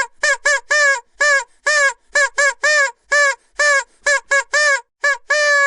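Vuvuzela blown in a rapid, uneven run of short toots, about three a second, each bending up in pitch and dropping off at its end. Near the end it changes to a long steady held note.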